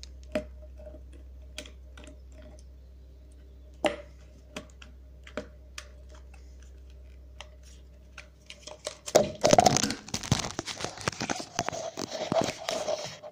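Scattered light clicks and taps of small plastic camcorder-eyepiece parts being handled on a table. From about nine seconds in, four seconds of much louder crackling and rustling.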